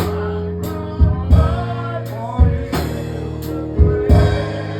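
Gospel praise band playing a slow worship song between sung lines. A drum kit keeps a slow, steady beat under sustained bass and keyboard chords.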